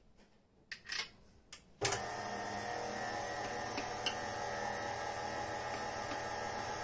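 A few light scrapes of a spoon on the steel bowl, then a KitchenAid stand mixer switches on about two seconds in and runs steadily with a motor whine, its wire whisk beating chocolate buttercream.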